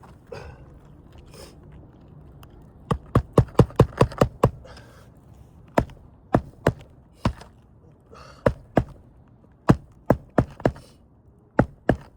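A series of sharp taps and knocks from tool work under asphalt roof shingles, a quick run of about six strikes followed by scattered single and paired strikes, with a few short scrapes between them.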